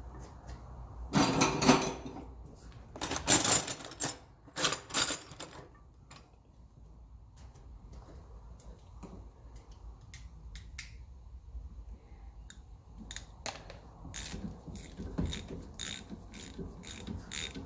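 A few loud metallic clatters of tools and parts being handled, then, from about fourteen seconds in, a socket ratchet clicking steadily at two to three clicks a second as the 9/16 in nuts holding the dynamo bracket to the water pump casting are wound off.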